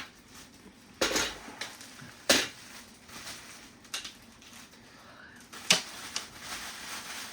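Shelf-kit parts and fittings being handled: a few separate sharp clinks and knocks of hard pieces against each other, the loudest a little past two seconds in.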